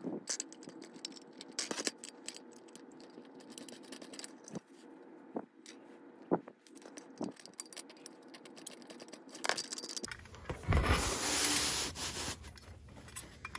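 Small metal clicks, scrapes and tinkles of a brass HO-scale tender truck being unscrewed with a small screwdriver and turned around in the fingers. About ten seconds in, a louder rustling hiss runs for a couple of seconds.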